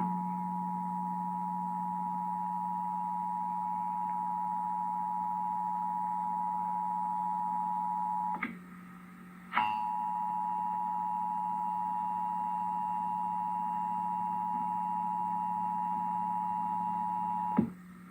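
Emergency Alert System two-tone attention signal: two steady sine tones sounding together, with a low steady hum underneath, marking the start of a Required Monthly Test. About eight seconds in it breaks off with a click and a second's gap, then resumes until another click near the end.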